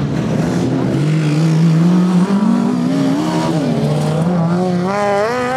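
Racing ride-on lawn mower engines running hard, their pitch climbing and dropping as the mowers accelerate and ease off around the dirt track, with a rapidly wavering pitch near the end.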